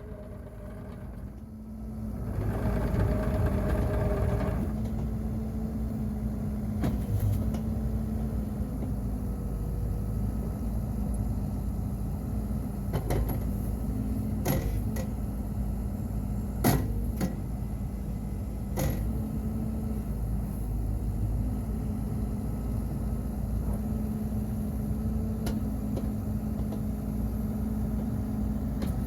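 Bobcat E50 mini excavator's diesel engine: it comes up about two seconds in with a brief higher-pitched run, then settles into a steady idle. Several sharp knocks sound over it.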